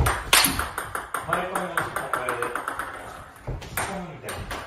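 Table tennis ball clicking off the bats and the table during a rally, in sharp single hits, with a run of quick light ticks in the middle.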